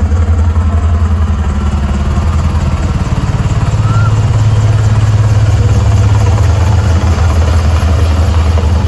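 Loud live rock band playing, dominated by heavy, distorted bass and guitar that overload the phone's microphone. A low sustained chord changes pitch a few seconds in.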